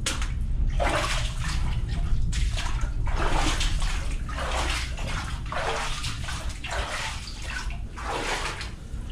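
Sea waves washing and surging: a rushing noise that swells and ebbs in irregular surges roughly once a second, over a steady low rumble.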